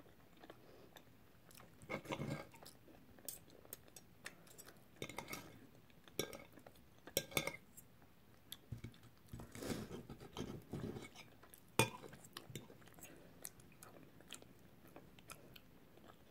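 A metal knife and fork clink and scrape on a ceramic plate, with close-up chewing of soft cooked food. Short scattered clicks and scrapes come at an uneven pace, the sharpest clink about three-quarters of the way through.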